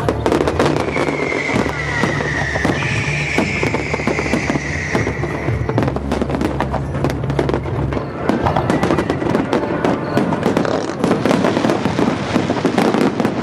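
Dense aerial fireworks barrage: rapid bangs and crackles of many shells bursting in quick succession, over music with a low bass that stops about eight seconds in.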